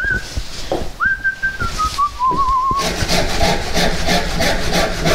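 A man whistling a tune: a single clear line that steps down in pitch and ends in a wavering trill. This is followed by a couple of seconds of quick, rhythmic scraping strokes.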